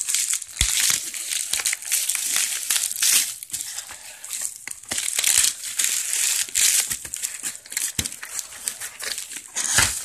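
Plastic bubble-wrap packaging crinkling and rustling as it is handled and pulled off a boxed in-line blower, with a few dull knocks along the way.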